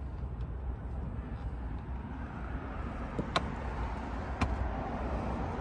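Steady outdoor street noise with a low rumble of traffic, and two sharp clicks about three and a half and four and a half seconds in.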